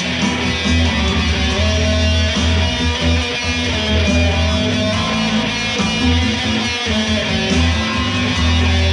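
Electric guitar played through an amplifier, continuous strummed and picked chords over a strong, steady low bass.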